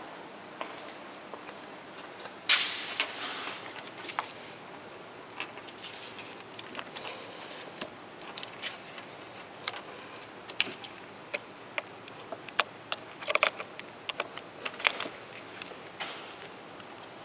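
Irregular light clicks and knocks, like small hard objects being handled, with a sharper clack about two and a half seconds in and a denser run of clicks in the second half.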